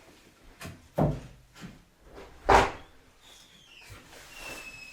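Knocks and thumps of wooden boards being handled: a few light clicks and two louder thumps, about one second and two and a half seconds in.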